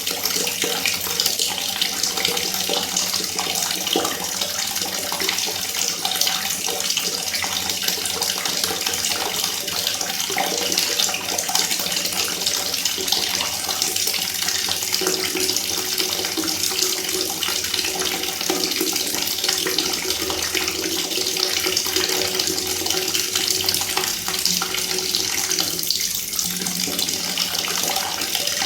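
Water falling fast and splashing in a steady, unbroken stream.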